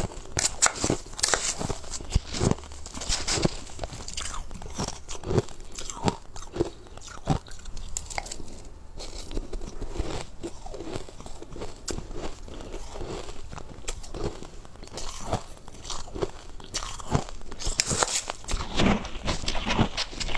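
Crushed ice being bitten and chewed in the mouth: many sharp, irregular crunches throughout.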